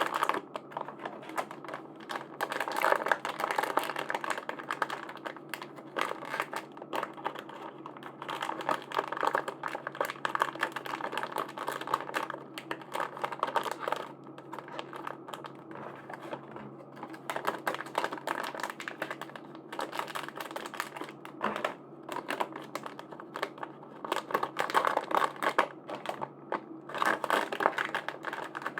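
Dense, irregular light clicking and tapping of small hard plastic pieces being handled, over a steady low hum.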